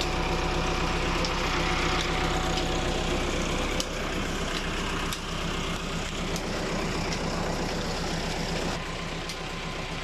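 Tractor's diesel engine running steadily, driving a tubewell pump, with water gushing from the outlet pipe into a brick tank. The level eases slightly about four seconds in.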